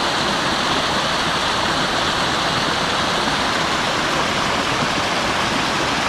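Small mountain stream cascading over rocks close by: a steady rushing, splashing hiss of white water.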